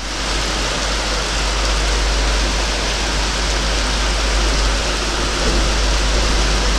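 Heavy rain pouring steadily, a dense even hiss, over a steady low rumble.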